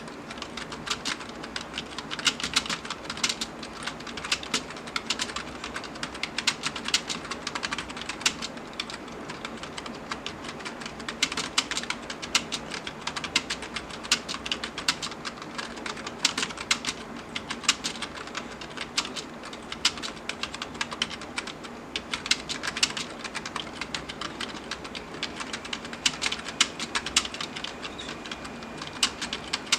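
Someone touch-typing fast and steadily on a computer keyboard: a continuous, uneven patter of key clicks with no real pauses.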